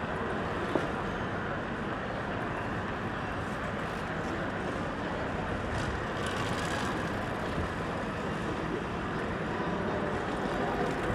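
City street ambience: a steady wash of traffic noise, with a brief click about a second in and a faint hiss around the middle.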